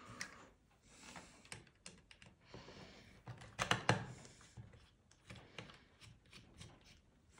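Light clicks and rustles of hands handling the opened Beoplay S3 speaker's plastic housing and circuit boards while working the power supply board loose, with a louder patch of clicking about halfway through.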